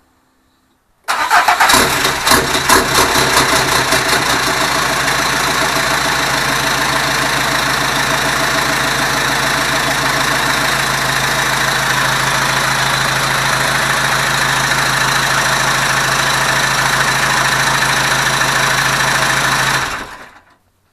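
Freshly installed Peugeot HDi common-rail diesel engine starting about a second in, running unevenly for the first few seconds, then idling steadily until the sound fades out near the end.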